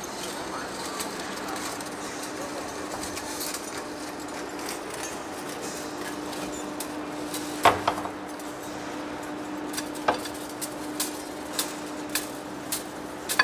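Heavy-duty face lathe turning a large steel rotor shaft: a steady machine hum with one constant tone. A loud sharp click comes a little past halfway, then a run of short metallic clicks about every half second toward the end.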